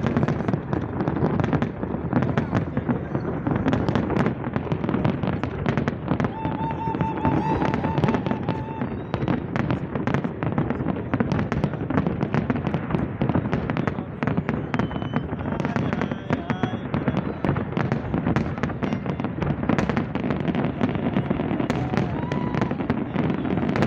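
Fireworks display going off in a dense, continuous barrage of overlapping bangs and crackles.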